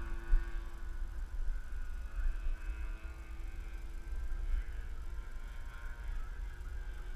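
Wind rumbling on the microphone, with the faint drone of a radio-controlled Edge profile aerobatic plane's motor and propeller in the air, its pitch wavering as it manoeuvres.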